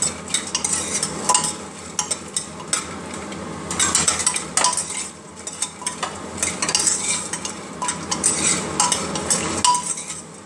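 A steel spoon stirring and scraping inside a pressure cooker pot, with repeated metallic clinks, over the sizzle of urad dal badi frying gently in mustard oil on a low flame.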